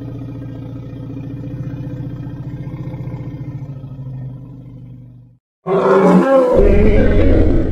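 Deinotherium creature sound effect: a low, rough growling rumble that fades away about five seconds in, then after a brief silence a loud bellowing roar starts abruptly.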